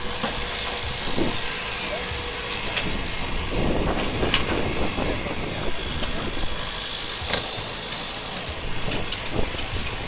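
Hydraulic rescue tool and its motor-driven power unit running steadily while the tool works on a car door, with several sharp metallic cracks from the bodywork.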